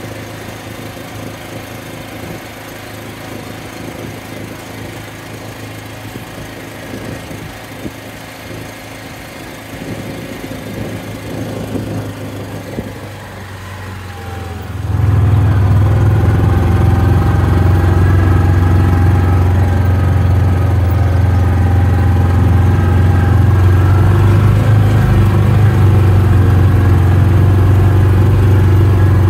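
Side-by-side utility vehicle's engine running as it drives, a steady low drone. About halfway through it suddenly gets much louder and stays loud and steady.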